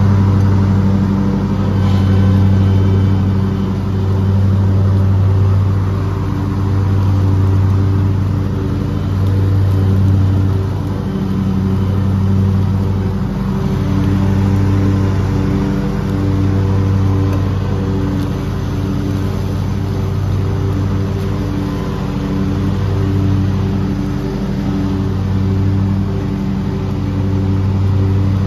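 Engine running steadily at a high, even speed: a low hum that swells and eases every couple of seconds.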